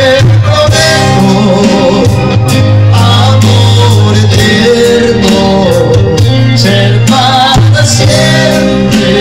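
Live band playing a romantic Latin tropical song over a loud PA, with a steady bass line, keyboard and guitar.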